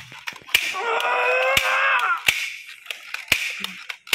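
Sharp gunshot-like cracks about once a second, likely added gunshot sound effects for a toy-gun fight. About a second in there is one long, steady high-pitched note lasting over a second.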